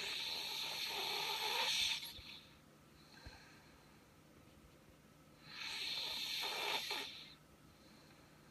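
A person snoring in sleep: two long snoring breaths about five and a half seconds apart, each lasting around two seconds, with a quiet pause between.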